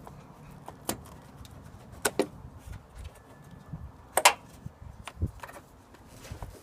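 A handful of sharp clicks and knocks, a close pair about two seconds in and the loudest a little after four seconds: hand tools and plastic trim being handled during work on a car's front end.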